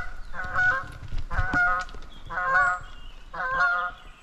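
Geese honking on the lake, four short bouts of calls about a second apart.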